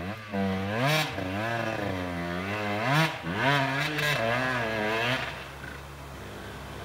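Off-road trail motorcycle engine revving up and down repeatedly as the bike rides along a muddy rutted track, dropping after about five seconds to a quieter, steadier engine note.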